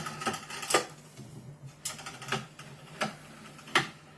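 Sharp clicking from the axis of a Genmitsu PROVerXL 4030 CNC router as it is moved by hand, about five clicks at uneven intervals. The machine has serious backlash in poor-quality lead screws, and the owner is not sure what the clicking means.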